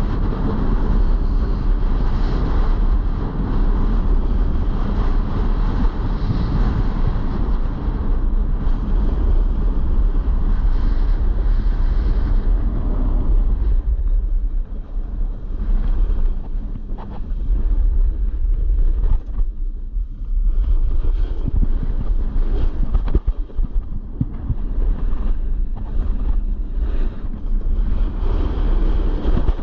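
Wind rushing over the microphone and a snowboard sliding and scraping across snow during a run. The rushing drops off about halfway through, leaving short, separate scrapes.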